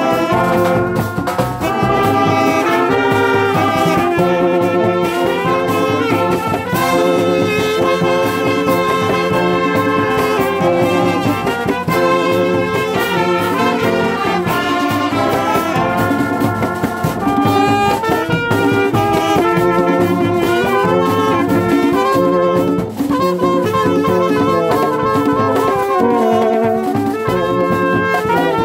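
Brass band playing: trumpets and trombones sounding chords together over steady hand-played barrel drums.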